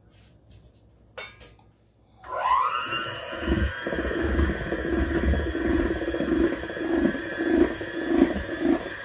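Electric hand mixer switched on about two seconds in, whirring up to speed and then running steadily as its beaters churn cake batter in a stainless steel bowl. A few light clicks come before it starts.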